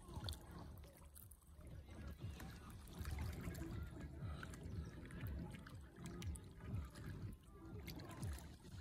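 Small waves lapping against a rocky lakeshore, with a low rumble underneath.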